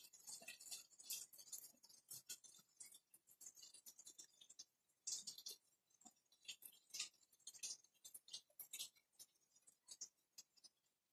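Near silence: quiet room tone with faint, irregular high-pitched crackles and ticks scattered throughout.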